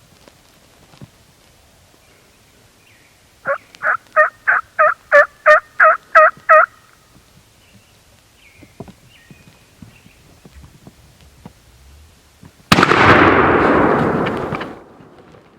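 A loud run of about ten turkey yelps, about three a second, then quiet. Near the end comes a single shotgun blast, sudden and very loud, which dies away over a couple of seconds: the shot that kills the turkey at 17 yards.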